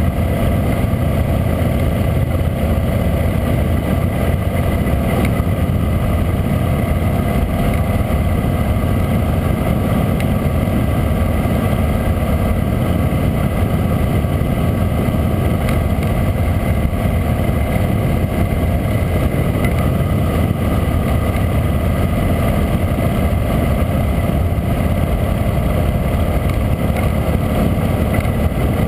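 Harley-Davidson V-twin motorcycle engine running steadily at cruising speed, mixed with wind and road noise on the bike-mounted camera's microphone.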